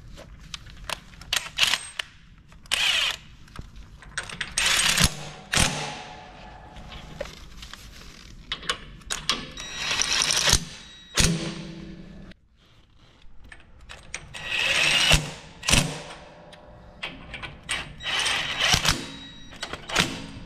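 Ryobi cordless impact driver with a socket running in several bursts of about a second each, driving down the bolts that clamp a stacker's steel straddle legs. Short metal clinks fall between the bursts.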